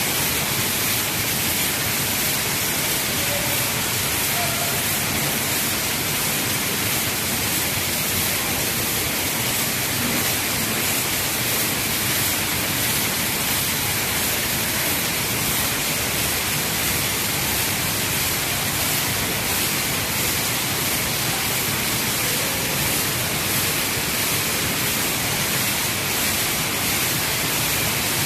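A steady, unchanging hiss with no rhythm or separate strokes.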